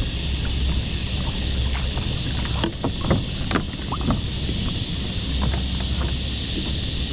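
Steady wind noise on the microphone. From about three to four seconds in, a few short splashes and knocks come as a crab drop net is pulled up through the water beside the kayak.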